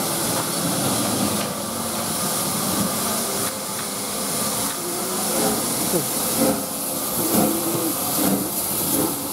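Steady steam hiss from Urie S15 steam locomotive No 506 standing at the platform.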